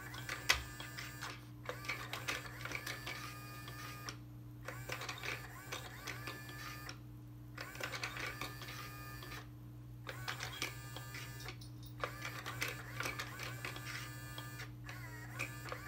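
Motorised cat-teaser toy (Nekojara Sitter) running its small geared motor: whirring and clicking in spurts of two to three seconds with brief pauses between, as the hidden wand moves in and out of the holes.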